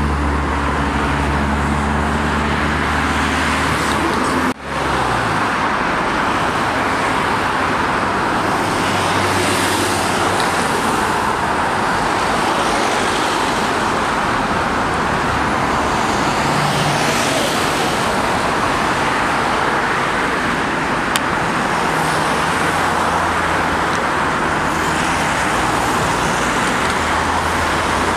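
Steady road-traffic noise, with a brief dropout about four and a half seconds in where the recording cuts.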